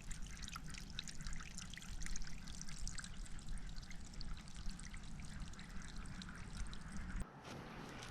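Water trickling and splashing steadily into a shallow pond, over a low outdoor rumble that drops away abruptly about seven seconds in.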